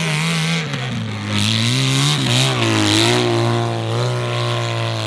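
Motorcycle engine running at speed, its pitch dropping about half a second in, wavering for a moment, then holding steady.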